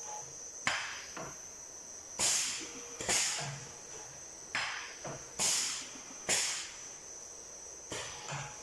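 Bottling-line machinery running: sharp hissing bursts of air, each fading quickly, come about once a second at uneven spacing over a steady high-pitched whine.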